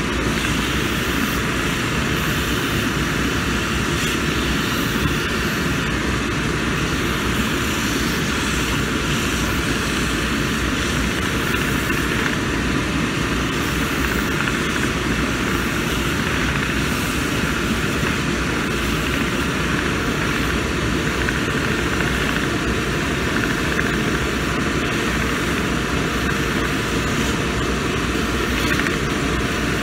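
Cobbler's finishing machine running with an unbroken drone while the edge of a new Vibram rubber sole is held against its spinning wheel for fine finishing.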